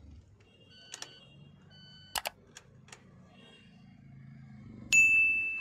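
A few sharp clicks as the ignition key of an electric car is turned for a restart, then near the end one loud, bright ding that rings and fades.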